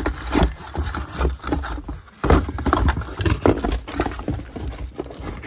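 Irregular knocking, scraping and rustling of a cardboard box and its contents being handled and rummaged through close to the microphone, with the loudest thumps from a little over two seconds in.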